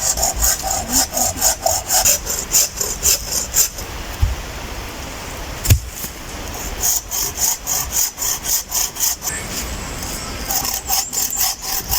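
Hand saw cutting through wood for a campfire, in quick back-and-forth strokes of about three a second. The sawing stops twice, with a single knock in the first pause, then starts again.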